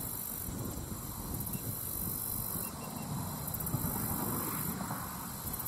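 Wind blowing across the microphone: a steady rumbling rush that swells and eases a little.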